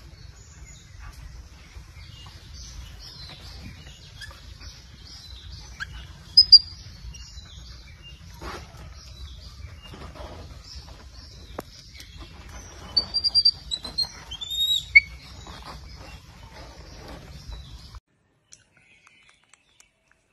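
High chirping animal calls over a steady low hum, with loud, short squeaky chirps about six and a half seconds in and a cluster of them around thirteen to fifteen seconds; the sound cuts off abruptly about eighteen seconds in.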